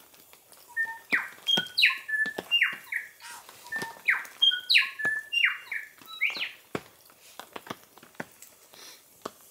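Bellbirds singing: a string of short clear notes and quick falling whistles, busiest for the first two thirds and thinning out after that. A few light clicks come through as well.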